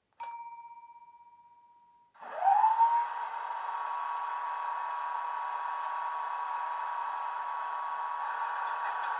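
A Class 25 diesel's Sulzer engine, as recorded in a DCC sound file, played through a small speaker in a model locomotive. It begins with a single ringing tone that fades over about two seconds. Then the engine starts, its pitch rising quickly to a loud start-up, and it settles into a steady idle.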